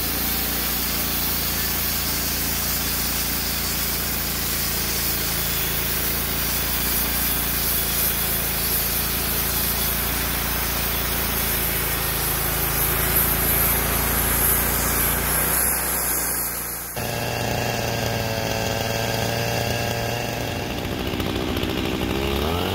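Wood-Mizer LT35 band sawmill cutting a thin board off a white oak cant, its engine and band blade running under load in a steady sawing noise. About seventeen seconds in the cut ends and the sound drops to a lighter, pitched engine run, which rises in pitch right at the end.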